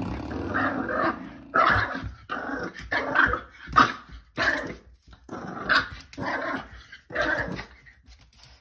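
A puppy growling and yapping in a string of short bursts, about one a second.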